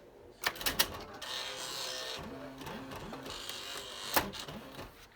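Smith Corona electronic typewriter powering up: a few sharp clicks, then its mechanism runs for about three seconds with a whir that steps up and down in pitch, ending in one loud click.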